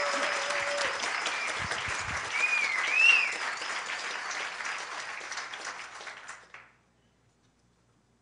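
Audience applauding, with a high call from the crowd that rises and falls twice about three seconds in. The clapping thins out and stops about six and a half seconds in.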